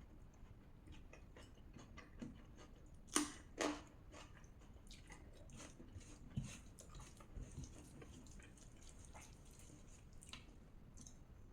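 Faint close-up eating sounds of rajma and rice being chewed: soft wet mouth clicks, with two louder sharp sounds about three seconds in.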